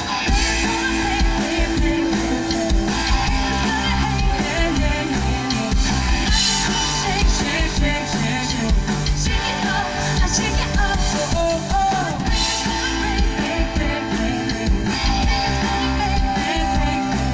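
A live rock band playing outdoors: drum kit, bass and electric guitar with a steady beat, and singing.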